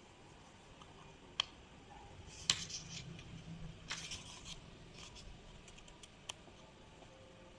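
Hands handling a comic book and its packaging: a few sharp clicks, with short bursts of light scratchy rustling and snipping in between.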